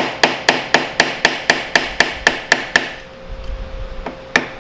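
Hammer tapping a flat, chisel-like scraper blade into the gasket seam of a Honda CA160's engine side cover, light metallic taps about four a second, to break the stuck gasket loose. The taps pause about three seconds in and start again near the end.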